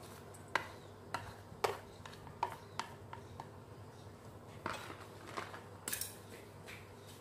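Chopsticks tapping and scraping against a plate and the rim of a stainless steel bowl as sliced lemongrass is pushed off the plate into the bowl: a string of sharp, irregular clicks.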